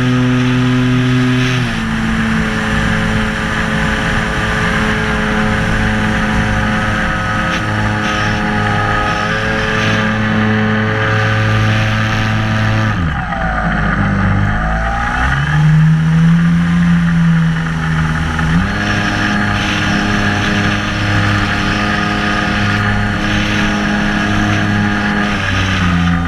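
Electric motor and propeller of a radio-controlled Piper J-3 Cub model, heard from a camera mounted on the plane, running with a steady whine over rushing wind. The pitch steps down and up several times, dipping and sliding back up about halfway through.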